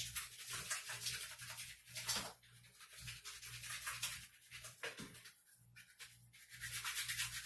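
Hands rubbing soap over a Samsung Galaxy Express phone's back cover in rapid scrubbing strokes, louder at first and again near the end.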